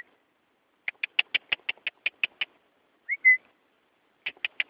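A songbird singing: a fast run of short notes, about seven a second, then a short two-part slurred whistle, then another quick run of notes near the end.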